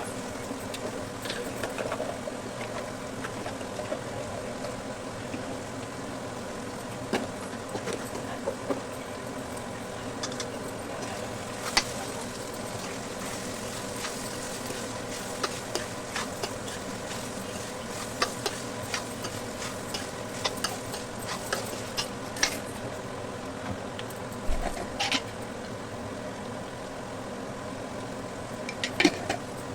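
A spatula stirring bitter gourd curry in a pan, with scattered sharp clicks and scrapes over a steady hum and sizzle.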